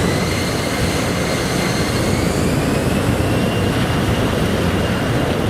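Jet airliner passing low overhead on its landing approach: a loud, steady engine roar with high whining tones that slowly slide in pitch.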